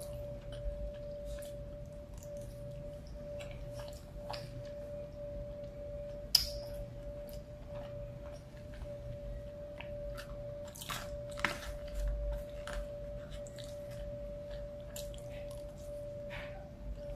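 Close-miked chewing of a forkful of rice and ground beef: soft wet mouth smacks and small clicks at an irregular pace, with one sharp click about six seconds in. Under it runs a steady faint tone.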